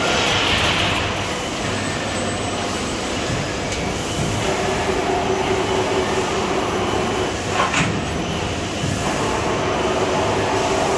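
CNC sheet-metal folding machine working: a steady mechanical running noise, with a humming drive tone that comes in about four seconds in and again near the end, and a couple of sharp clicks.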